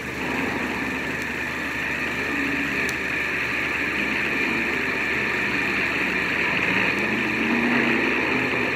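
Petrol pump running as fuel flows through the nozzle into a car's tank: a steady rushing hiss over a low hum, growing slightly louder. It is heard through a worn 16mm film optical soundtrack.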